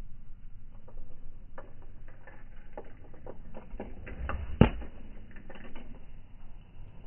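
Golf club striking the ball and turf in a full swing: one sharp crack about four and a half seconds in with a low thud around it, among scattered lighter ticks.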